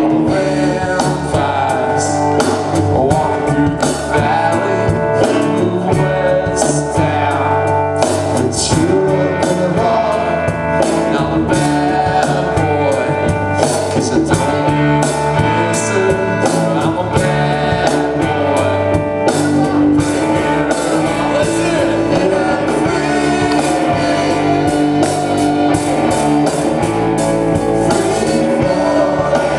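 Live band playing a song with electric guitar, drums and singing, loud and steady throughout.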